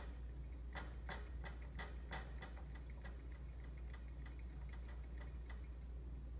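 Hamster moving about in its wire-and-plastic Critter Trail cage: a run of light, irregular clicks, quick at first and thinning out, stopping about a second before the end.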